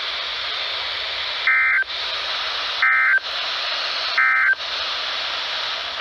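NOAA Weather Radio broadcast through a Midland weather radio's speaker: steady static hiss broken by three short two-tone digital data bursts about 1.3 seconds apart. These are the SAME end-of-message code that closes the Required Weekly Test.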